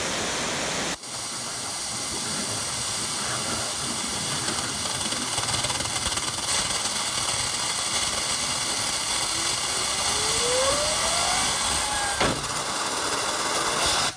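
60,000 PSI waterjet cutter's jet blasting with a loud, steady hiss. Near the end a faint whine rises in pitch as the skateboard wheel it is spinning speeds up, and a sharp crack follows a little later.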